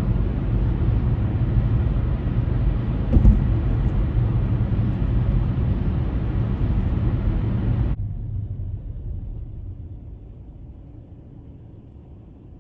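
Road noise of a car driving, a steady low rumble with one short bump about three seconds in. About eight seconds in, the sound suddenly loses its upper part and then fades away.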